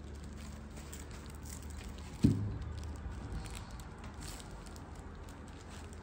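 Faint clicks and rustles of the lamp's metal arms and wire being handled, with a single dull thump about two seconds in.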